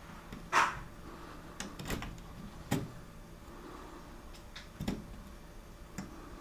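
Scattered clicks and knocks, about five in all, the loudest about half a second in.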